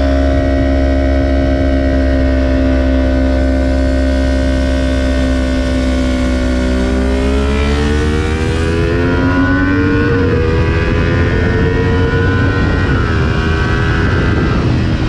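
2020 Kawasaki Ninja 400's parallel-twin engine heard from on the bike while riding. It holds a steady note, then climbs in pitch under throttle, with a brief drop about ten seconds in as with a gear change before it climbs again. Wind rumbles on the microphone throughout.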